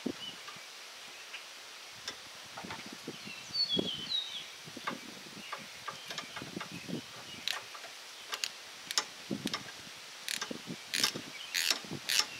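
Scattered clicks and knocks of hand tools working on hose and line fittings, irregular and coming more often toward the end.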